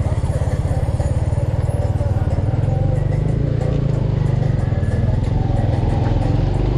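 Boda-boda motorcycle taxi's engine running steadily under way, a rapid even low pulsing.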